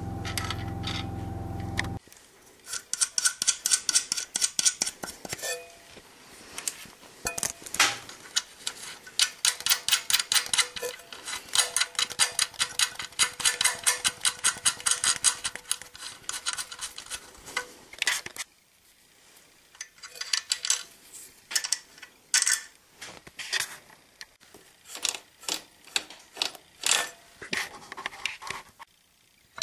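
A steady machine hum that cuts off suddenly about two seconds in. It is followed by long runs of rapid metallic clicking and clinking as tools work on metal parts, thinning out to scattered clicks after about 18 seconds.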